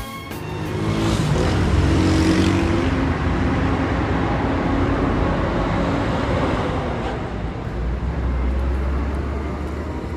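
Road traffic: a car engine humming under the rush of tyres, swelling about a second in and easing off slowly, with a deeper engine hum coming up near the end.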